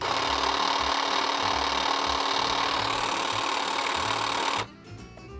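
Cordless battery-powered hedge trimmer switched on and running free, not cutting, its blades going back and forth at high speed. It runs with a steady sound and cuts off suddenly about four and a half seconds in when the buttons are released.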